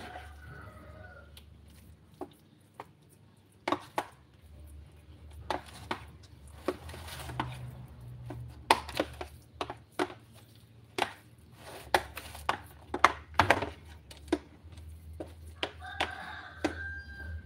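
Plastic spatula knocking and scraping against a plastic basin and a metal baking tin, an irregular string of sharp taps, as a grated sweet-potato mixture is scooped into the tin and spread. A low steady hum runs underneath.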